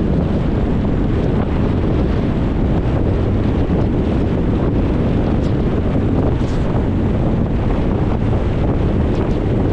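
Steady road noise from a car driving: tyre and wind noise rushing past without a break, heaviest in the low end.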